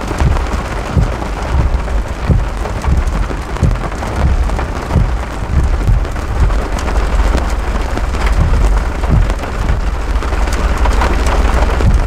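Heavy rain pelting a car's windshield and roof, a dense steady hiss with irregular low thumps. Thunder rumbles underneath.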